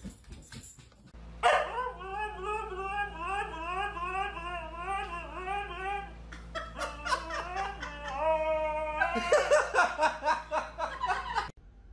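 White husky vocalizing: a long warbling 'woo-woo' call whose pitch wobbles up and down about twice a second, then shorter broken calls and a briefly held note. A person laughs in choppy bursts over the last two seconds or so.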